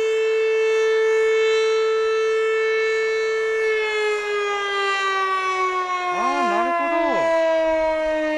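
Outdoor siren on the fire brigade's tower sounding the noon signal: one long, loud tone held steady, then slowly winding down in pitch from about halfway through.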